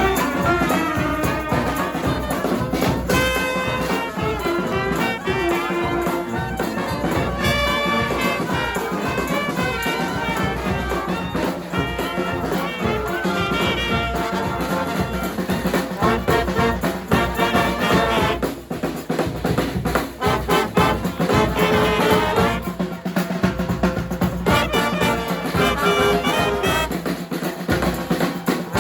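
A New Orleans second-line-style brass band playing, with trumpets and trombones over a steady drum beat.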